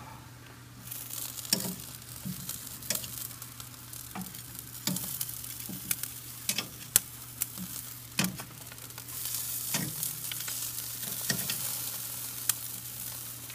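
Chicken wings sizzling on the grate of a charcoal kettle grill, with repeated sharp clicks of tongs against the grate as the wings are turned over. The sizzle swells about a second in and again near the end.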